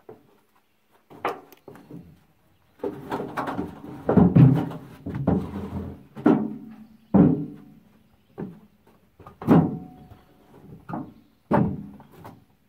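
A series of irregular heavy clanks and thumps with a short metallic ring, coming thick and fast for a few seconds in the middle, then as spaced single knocks.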